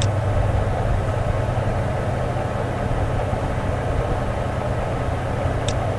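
Steady low electrical hum with background hiss from the recording setup. Two short clicks stand out, one at the very start and one near the end, consistent with mouse clicks on the software's ribbon tabs.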